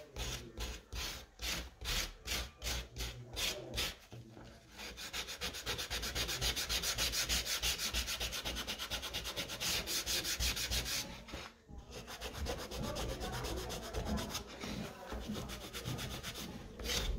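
Folded sandpaper rubbed by hand over a carved wooden panel, rounding and smoothing the carved edges. Slower, separate strokes at first, then several seconds of fast back-and-forth scrubbing, a brief pause, and softer strokes near the end.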